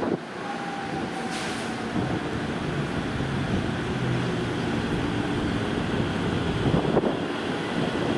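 Electric commuter train running along the platform with a steady rumble of wheels on rail, a faint brief whine near the start and a couple of sharp clacks.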